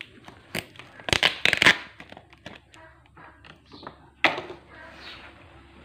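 Cardboard packaging box being handled by hand: rustling and scraping of the cardboard, with loud crackling bursts about a second in and again just after four seconds.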